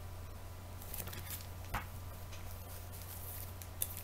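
A comic book in a plastic bag being handled and put down: faint crinkling and handling noises, with a soft knock a little under two seconds in and another near the end.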